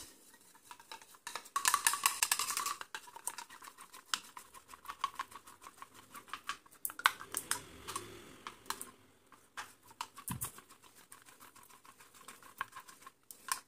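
Plastic spoon beating egg yolk and castor oil in a small metal cup: fast, rapid clicking and tapping of the spoon against the cup, densest and loudest a couple of seconds in.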